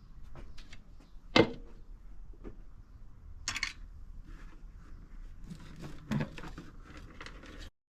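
Parts of a blender being handled during a teardown: scattered clicks and knocks, one sharp knock about a second and a half in, a short scrape around the middle and a clatter near the end, after which the sound cuts off.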